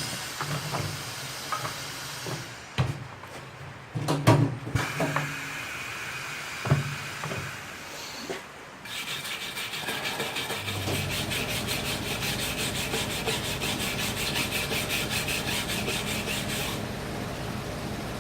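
Hand wire brush scrubbing dirt and deposits off the bead seat of a motorcycle wheel rim. The strokes are irregular with a few knocks at first, then about halfway through settle into fast, steady back-and-forth scraping, while a low steady hum comes in.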